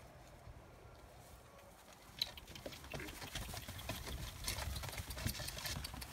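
Puppies scrambling and scuffling about in straw bedding, with rustling and many small clicks and scrapes that start with a sharp click about two seconds in, mixed with footsteps in the straw and a few faint puppy squeaks.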